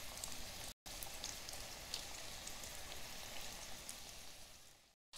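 Cornflake-coated chicken pieces deep-frying in sunflower oil in a steel kadai: a steady hiss of bubbling oil with many small crackles. The sound cuts out briefly just under a second in and fades away near the end.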